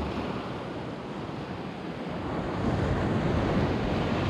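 Sea waves washing against rocks, with wind buffeting the microphone. The surge of water swells louder about halfway through.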